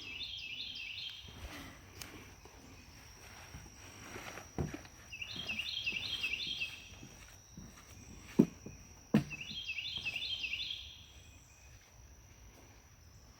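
A songbird singing three short bouts of quickly repeated high notes, about five seconds apart, over a steady high insect trill. A few soft thumps fall between the second and third bouts.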